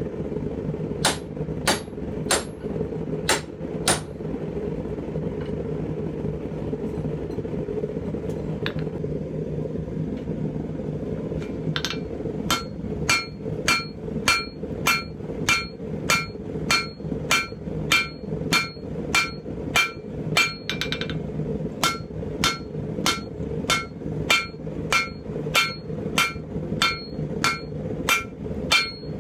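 Blacksmith's hammer striking red-hot steel on an anvil while forging the eye of a pipe tomahawk. A few blows come at first, then a pause of several seconds. Steady blows then follow about one and a half a second, each with a ringing anvil tone.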